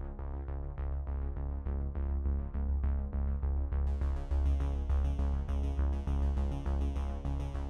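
Background music with a steady beat and held tones; a higher layer joins a little under four seconds in.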